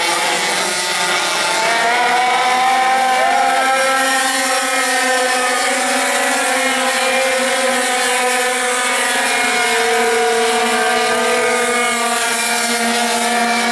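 A pack of racing pocket bikes running at speed, their small engines buzzing in several overlapping notes that drift up and down as the riders lap the circuit.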